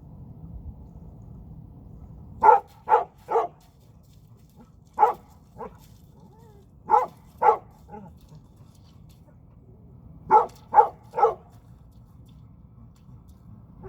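A dog barking, about a dozen short barks in groups of two or three a few seconds apart.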